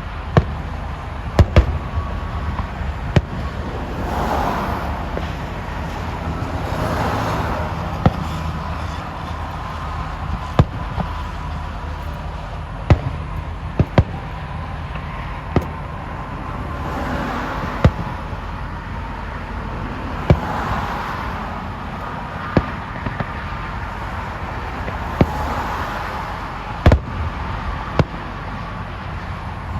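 Fireworks display: sharp bangs from exploding shells every one to three seconds, mixed with longer hissing swells.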